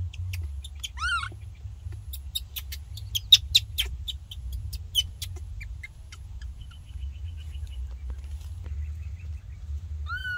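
Baby macaque giving a short rising squeal about a second in and again at the very end. Between the calls comes a quick run of sharp snaps and crackles, the loudest sounds here, like twigs and dry leaves breaking.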